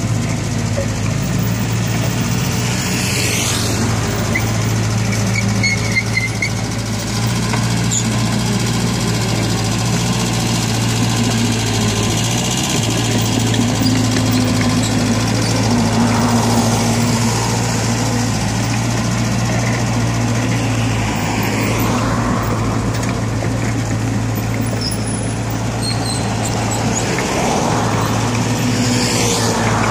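Hanix H45A mini excavator's diesel engine running steadily under hydraulic load while it digs and spreads wet soil, its note rising and falling a few times.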